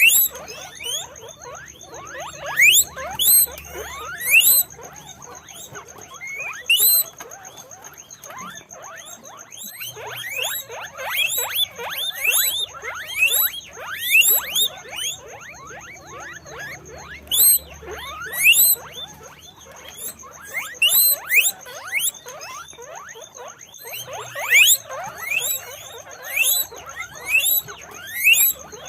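Guinea pigs squeaking: many short, high, rising squeals in clusters of several at a time, with brief lulls between. A faint steady high-pitched tone runs underneath.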